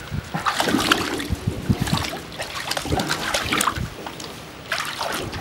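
A border collie mix splashing in a shallow tank of water, pawing and dipping its muzzle after goldfish: many irregular splashes and sloshes.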